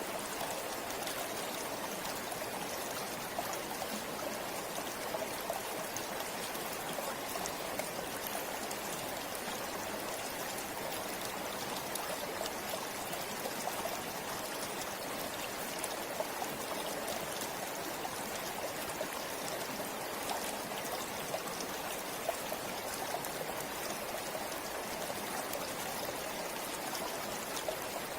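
River water flowing: a steady, even rush with small splashes and droplets scattered through it.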